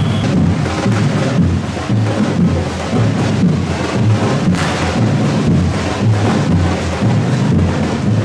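Drums beating a steady rhythm, with a few sharp bangs from fireworks, one about halfway through.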